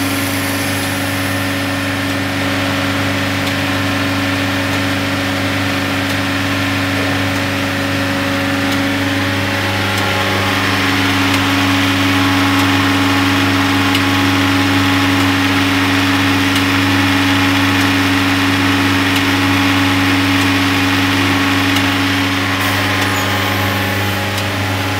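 Self-generating nitrogen servicing cart running steadily during start-up: a constant machine hum with a steady mid-pitched tone. From about ten seconds in, a louder hiss joins it and eases off again near the end.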